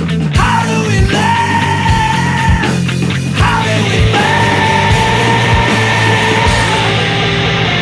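Instrumental background music with a steady drum beat and a lead line that twice slides into a long held note.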